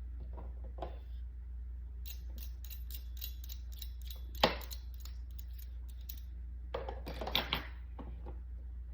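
Plastic push-down vegetable chopper being handled: a run of light clicks and rattles, one sharp click about four and a half seconds in, then more clatter near the end.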